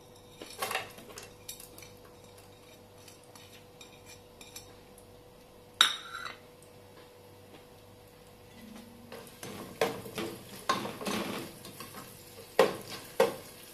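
Sliced onions tipped into hot oil and ghee in a nonstick pot and frying with a faint sizzle; a sharp clink about six seconds in, then a spatula stirring the onions, scraping and knocking against the pot several times near the end.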